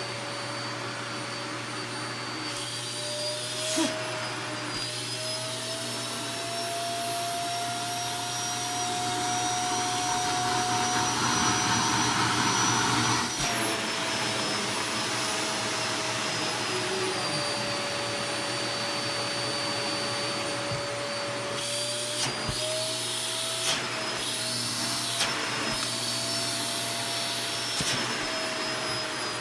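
Vacuum cleaner running steadily, its motor whine drifting up in pitch around the middle and dropping back, with a few light knocks and bumps near the start and in the last third.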